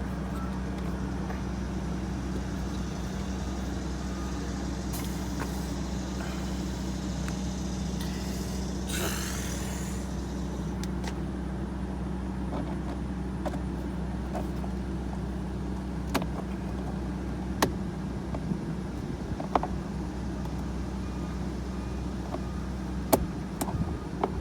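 A vehicle engine idling with a steady low hum. From about two-thirds of the way in come a few sharp clicks and snaps: plastic door-panel clips popping as a trim removal tool pries the panel loose.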